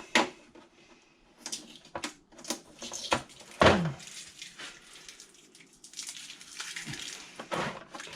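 Sticky tape being peeled off packaging by hand: irregular rasping tears and crackles, with a louder tear about three and a half seconds in.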